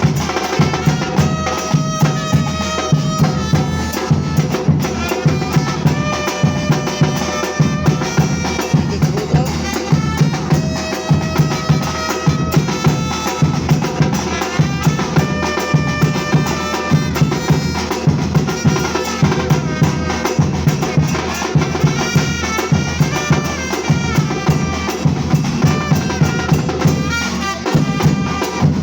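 Batucada percussion group playing a steady, driving drum groove with regular strong beats. A sustained melody of held notes that step up and down in pitch sounds over it.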